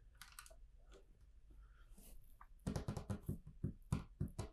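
Plastic LEGO bricks clicking and clattering as they are handled and sorted. A few faint ticks come first, then a quick run of sharp clicks starts a little past halfway.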